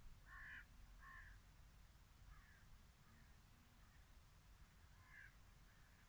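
Faint calls of a distant bird: two short calls in the first second and a half, fainter ones after, and another near the end.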